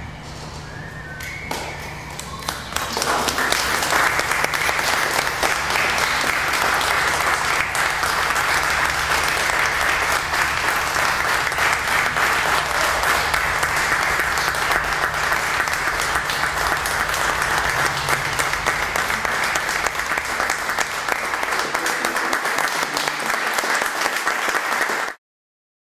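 Audience applauding, swelling over the first few seconds and then holding steady until it is cut off abruptly near the end, over a steady low hum.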